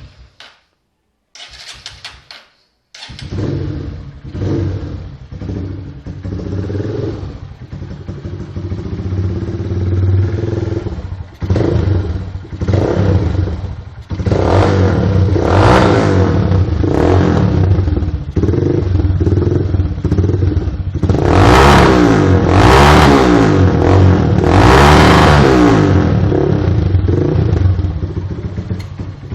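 Honda CG Titan 150 motorcycle's single-cylinder four-stroke engine, through a Roncar aluminium aftermarket exhaust, catching about three seconds in after brief cranking, then idling with throttle blips. In the second half it is revved hard several times.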